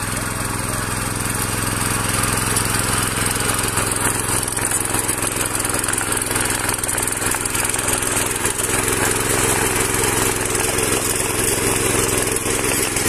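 Small engine of a mini power weeder (rotary tiller) running steadily under load while its rotary tines churn through soil.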